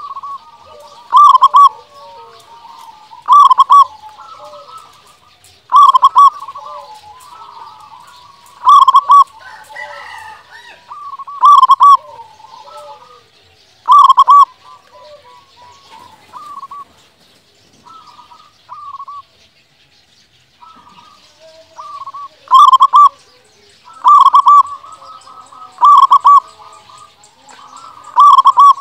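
A local zebra dove (perkutut) in full song, repeating its loud cooing phrase about every two seconds, with softer cooing between phrases. It falls quieter for several seconds past the middle, then the loud phrases resume.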